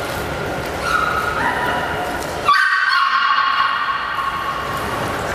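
A dog whining and yipping in high, drawn-out tones that step up and down in pitch, louder from about halfway through.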